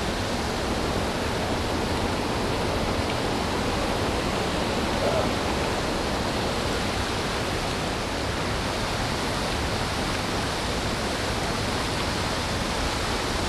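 Steady rush of fast, shallow creek water running over rocks and riffles.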